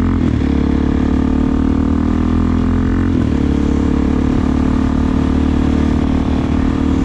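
Suzuki DR-Z400SM single-cylinder four-stroke engine running through an aftermarket Delkevic exhaust while riding, a steady loud note that shifts briefly twice, just after the start and about three seconds in.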